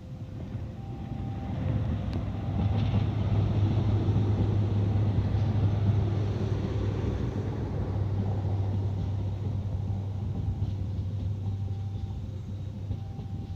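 A diesel locomotive's engine drones low under the rumble and rush of a moving train. It swells over the first few seconds, then slowly fades as the train goes by.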